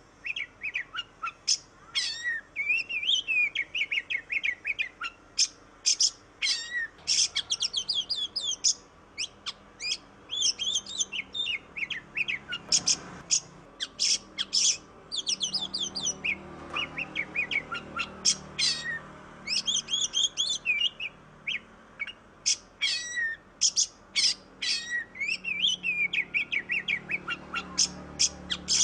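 Oriental magpie-robin (kacer) in full song, a fast run of varied whistles, sharp chips and chattering phrases with hardly a pause.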